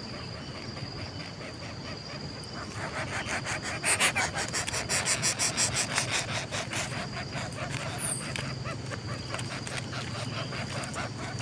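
Coucal chicks in the nest making rapid raspy begging calls, a run of quick scratchy strokes that is loudest from about three to seven seconds in. A steady high insect tone runs underneath.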